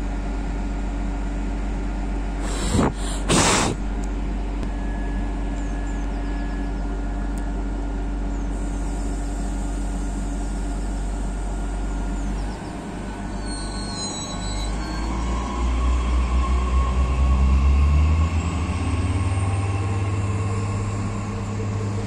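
SNCF X 76500 (Bombardier AGC) diesel railcar idling with a steady hum, with two short loud hisses of air about three seconds in. About twelve seconds in the engines rev up, rising in pitch and growing louder, as the train pulls away.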